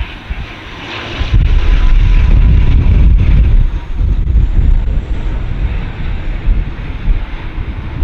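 Jet airliner's engines on a landing pass, a steady rushing noise with a faint whine, heavily buffeted by gusts of wind hitting the microphone.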